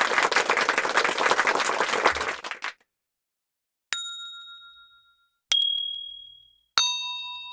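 A couple of seconds of clapping applause, then three separate bell dings, each a different pitch, struck one after another and ringing out as they fade.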